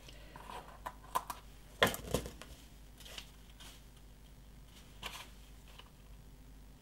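Paper handling: light rustles and a few short ticks of cardstock and metal tweezers as foam adhesive dimensionals are peeled from their backing and a die-cut paper label is pressed onto a small cardstock slide box. The sharpest ticks come about two seconds in.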